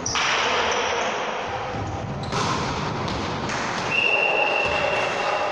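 Noise of an indoor sports hall with ball thumps, and a referee's whistle blown in one long steady blast about four seconds in.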